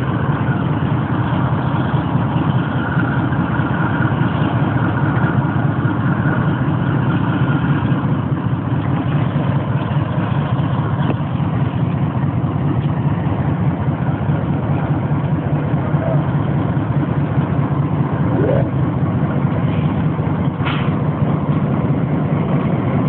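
Diesel-electric freight locomotive's engine running steadily and loudly as it moves slowly closer on the adjacent track during a shunting move.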